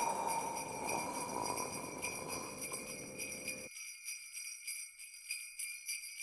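Sleigh bells jingling with a fast, even shaking rhythm. A lower rushing noise runs under them and cuts off suddenly a little under four seconds in.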